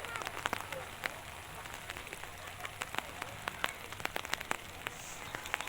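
Raindrops falling onto a surface, irregular sharp taps several times a second over a steady hiss.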